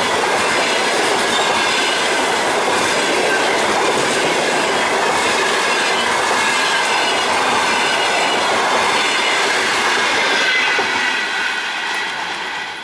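Passenger coaches of an express train running past at speed: loud rumble and clatter of wheels on the rails with a high steady squeal above it. The sound falls away near the end as the train draws off.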